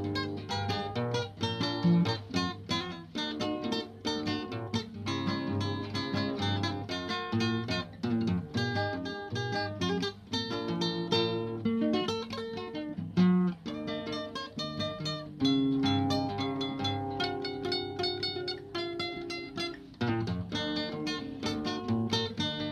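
Solo acoustic guitar played fingerstyle: a picked melody over bass notes, played without a break.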